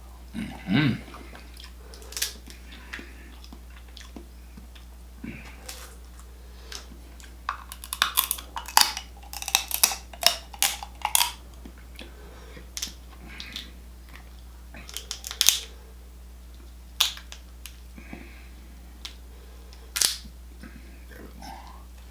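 Close-miked eating of a seafood boil: sharp cracks and snaps of seafood shells being broken open and chewed, coming in a dense run through the middle and then scattered singly. A steady low hum runs underneath, and there is a short vocal sound about a second in.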